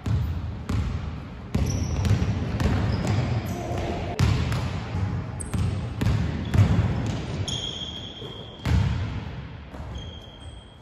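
Basketball bouncing on a hardwood gym floor as players dribble in a game: repeated deep thuds with an echo, every half second to a second. A few short, high sneaker squeaks on the court come in between, the longest near the end.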